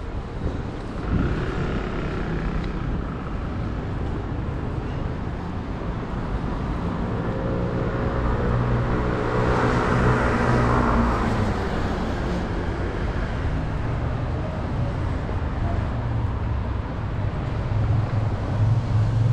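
Street ambience with a motor vehicle passing by: its engine sound swells to a peak about ten seconds in and fades again, over a steady low rumble of traffic.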